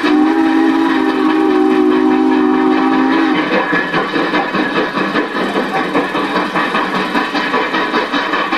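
Steam locomotive passing with a whistle blast of about three seconds, several tones sounding together as a chord, that cuts off. Its exhaust chuffs in an even rhythm throughout.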